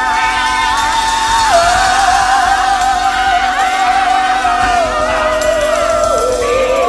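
Music with a voice singing long held notes that step down in pitch.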